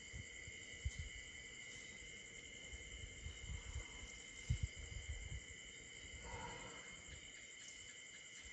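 Night insects trilling steadily at two high pitches, with dull low thumps about one and four and a half seconds in and a short soft rush about six seconds in.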